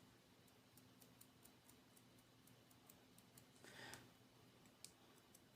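Near silence: room tone with a faint steady hum and many faint scattered ticks, plus a soft brief rustle about four seconds in.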